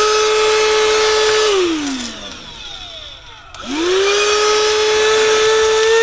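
Afbest handheld cordless vacuum cleaner's motor running with a steady whine. About a second and a half in it is switched off and winds down. About three and a half seconds in it is switched back on and spins up to full speed again.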